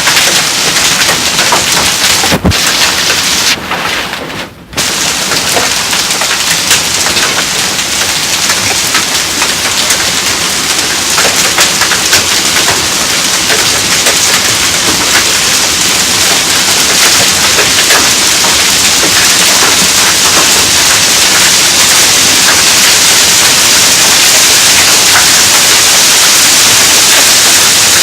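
Hail falling heavily: a dense patter of countless small stones striking, which briefly drops away about four seconds in, then thickens into a steadier, denser hiss in the second half.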